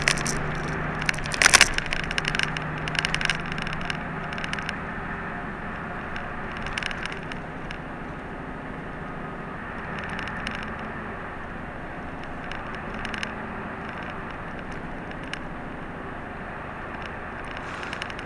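Inside a route bus on the move: the steady drone of the engine and tyres, with short clicks and rattles from the cabin. A sharp click comes about a second and a half in, and the drone gradually eases off over the first several seconds.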